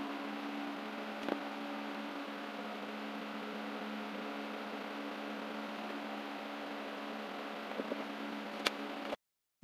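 Steady mechanical hum in a workshop, with a few light clicks and taps as the plastic satellite-dish LNB housing and cable are handled, about a second in and again near the end. The sound cuts out abruptly just before the end.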